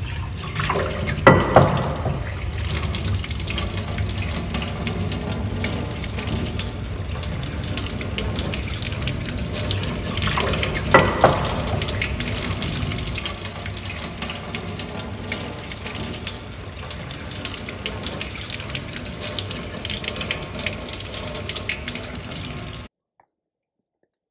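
Water running steadily, with two sharp knocks, one about a second in and one about eleven seconds in. The running water cuts off suddenly near the end.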